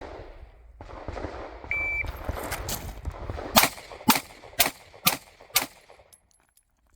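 A shot timer gives one short beep. About two seconds later come five pistol shots fired about half a second apart, a fast string drawn from concealment.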